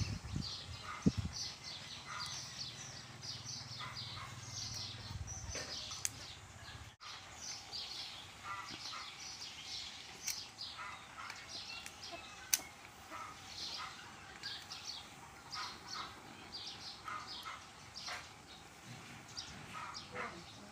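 Small birds chirping busily, short high chirps several times a second, with a few sharp clicks and knocks, the loudest a little after a second and about twelve seconds in.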